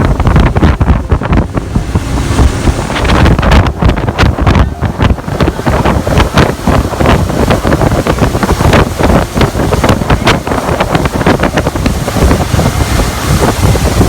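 Heavy wind buffeting the microphone over rushing, splashing water, as from a small boat moving at speed. The rumble is loud and unbroken, with uneven gusts and slaps throughout.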